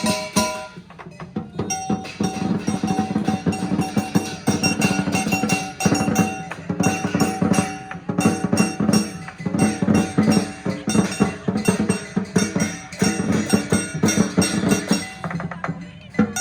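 Lion dance percussion music: fast, dense drumming with steady held tones above the beat.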